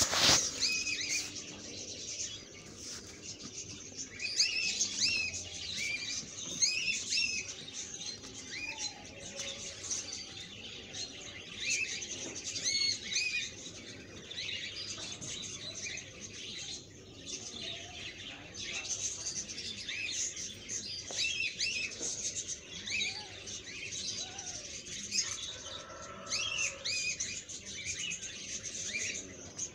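Small birds chirping, many short high calls overlapping one another. Right at the start, a sharp clatter as chopped tomatoes are pushed off a dish into the pan with a metal spoon.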